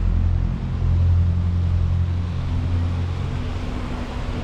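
Icebreaker sightseeing boat's engine droning steadily with a low hum, under a steady hiss of broad noise.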